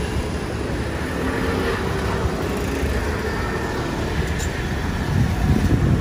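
Roadside traffic noise with a pickup truck driving past close by, swelling to its loudest near the end.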